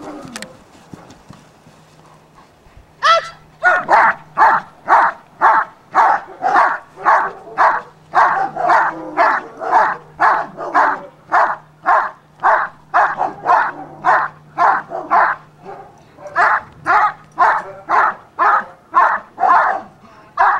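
German Shepherd barking steadily at a helper holding a bite sleeve, the guarding bark of protection-work training. The barking starts about three seconds in and keeps an even rhythm of about two barks a second.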